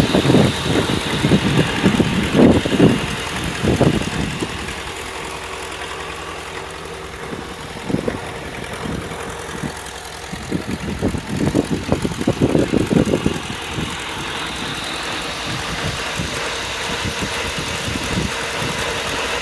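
Engine running and driving an antique Corley sawmill's spinning blade. It pulses loudly and unevenly for the first few seconds and again for a few seconds past the middle, running steadily in between.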